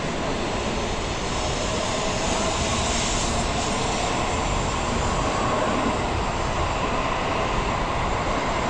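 N700A Shinkansen train passing a station platform at high speed without stopping: a loud, steady rush of air and wheel-on-rail noise as the cars stream by, with a faint steady whine underneath.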